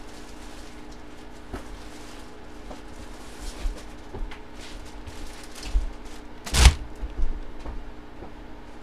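Plastic-bagged jerseys being handled and laid on a table: scattered crinkles and knocks, the loudest about six and a half seconds in, over a steady hum.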